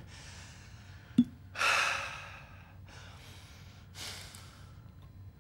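A man breathing heavily. A short click comes about a second in, then one loud breath, followed by two fainter breaths.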